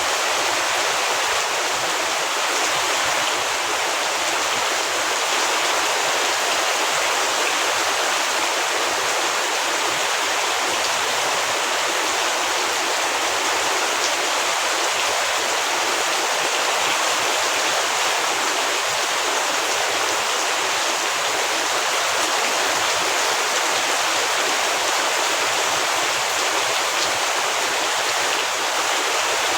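Heavy rain falling steadily, a dense even hiss of rain with no breaks.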